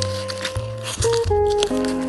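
Background music: a melody of held notes over a steady bass line, with faint crinkling of paper or plastic underneath.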